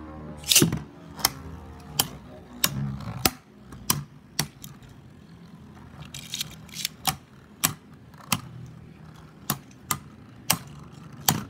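Two Beyblade spinning tops whirring in a plastic stadium, knocking together and against the stadium walls in sharp clacks every half second to a second, the loudest clack about half a second in.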